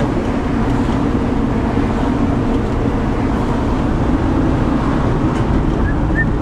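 Steady road and engine noise inside a van's cab while driving at road speed.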